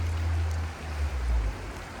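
Stream water flowing steadily. A loud low rumble underneath breaks off about three-quarters of a second in, swells once more, and stops about a second and a half in.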